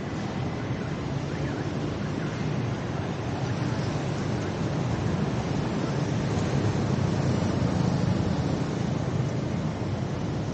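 Steady rumble of city road traffic, swelling for a few seconds in the middle and easing again.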